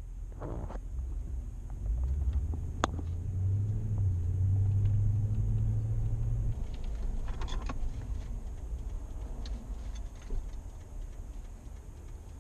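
Low engine and road rumble of a 2015 Toyota Tundra pickup heard from inside the cab while driving, with a low hum that grows stronger about two seconds in and eases off past the middle. A few light clicks sound over it.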